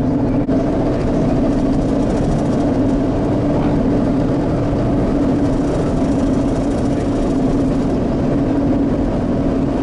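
Steady drone of a vehicle driving, heard from inside the cabin: a low hum of tyres and engine on the road.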